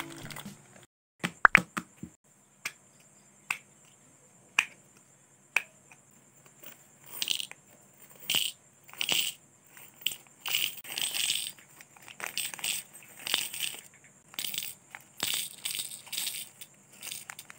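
Small metal jewelry findings clinking and rattling as they are poured from plastic zip bags into a plastic compartment box, with the bags crinkling. A few separate sharp clicks come first, then from about seven seconds on a quick run of rattling bursts.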